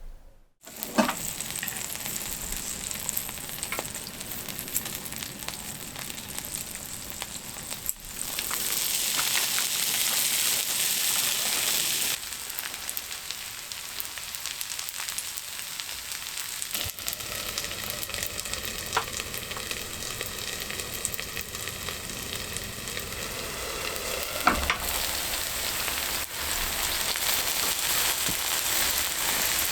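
Food sizzling in a hot pan, a steady frying hiss that gets louder partway through, with a few sharp clicks.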